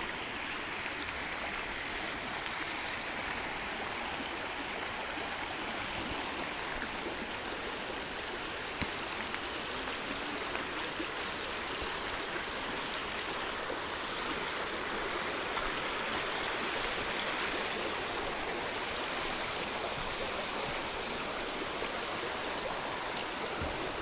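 Small forest creek running over rocks: a steady splashing hiss of flowing water, growing slowly louder.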